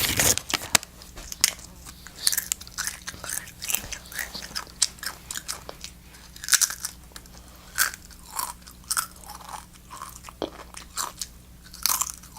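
Doritos tortilla chips being bitten and chewed close to the microphone: irregular crisp crunches, some sharper bites among softer chewing.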